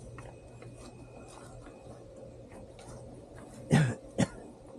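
Two short coughs about half a second apart near the end, over a low, steady background.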